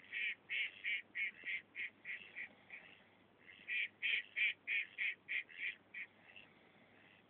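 Duck quacking in two long runs of loud quacks, about three or four a second: the first run of nine or so fades off, and after a short pause a second run of eight comes on strong.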